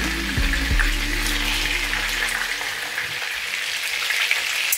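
Meat patties sizzling in hot oil in a frying pan, a steady hiss. A couple of knocks in the first second come from wooden spatulas turning the patties.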